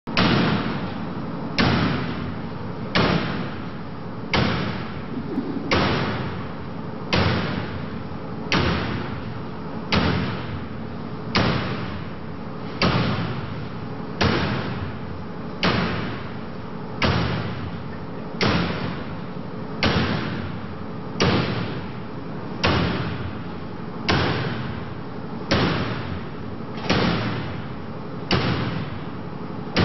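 Axe blows striking a woven metal-wire security drapery, about one every second and a half, each a sharp hit with a short ring-out. It is a steady, repeated forced-entry attack on the drapery.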